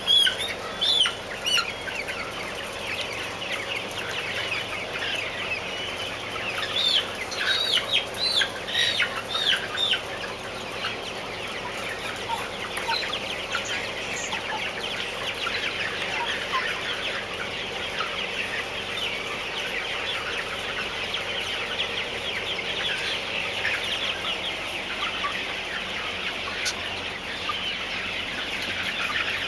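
A large flock of white Novogen parent-stock chickens clucking and chirping. Separate louder calls stand out during the first ten seconds, then the sound becomes a dense, steady chatter of many birds.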